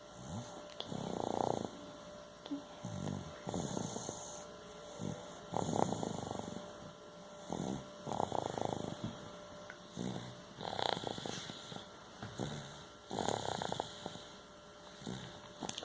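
A person snoring in sleep, a rattling snore on the breaths, about every two to three seconds.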